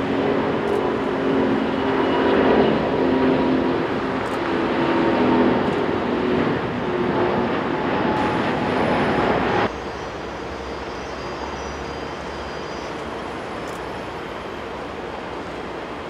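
Airbus A350-900's Rolls-Royce Trent XWB turbofans at takeoff power as the airliner climbs out close by: a loud rushing jet noise with wavering engine tones. About ten seconds in it cuts suddenly to a quieter, steadier jet noise of the aircraft taking off farther away.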